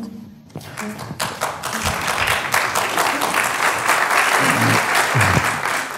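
Audience applauding, starting about half a second in and rising to steady clapping.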